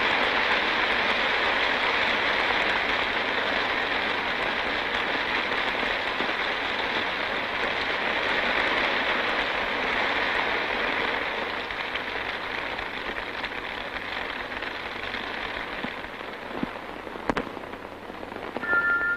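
Rain sound effect on an old, thin 1940s cartoon soundtrack, a steady hiss of downpour that slowly fades. There is a sharp click about three quarters of the way through. Near the end, bell-like mallet notes of music come in.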